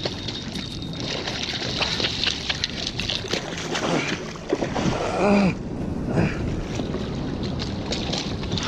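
A hooked corvina splashing and thrashing at the surface right beside a kayak as it is drawn alongside, with water sloshing against the hull. A man gives a brief wordless exclamation about halfway through.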